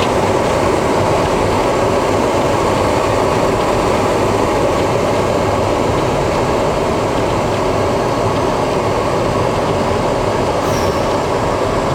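Steady road and engine noise of a car, heard from inside the cabin while driving.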